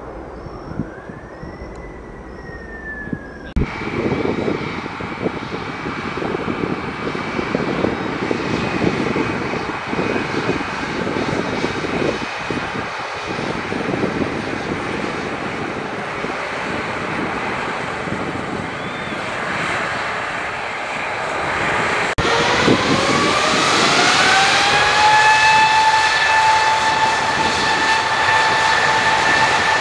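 Turbofan engines of an Embraer E195-E2 jet running with a steady roar. About three quarters of the way in they spool up: a whine rises and then holds at a steady high pitch over the roar as take-off thrust is set.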